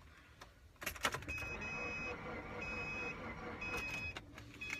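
A car being cranked that fails to start: a noisy mechanical churn runs for about three seconds and stops without the engine catching. A dashboard warning chime dings about once a second throughout.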